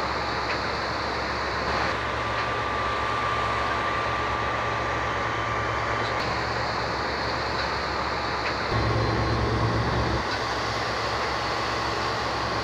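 Boat engine running with a steady low drone under a rushing hiss and a faint steady whine; the drone swells for about a second a little past two-thirds of the way through.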